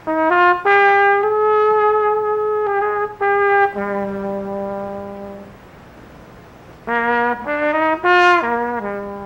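Brass music: a trumpet melody played in two phrases with a lull between them, and a lower brass note held beneath.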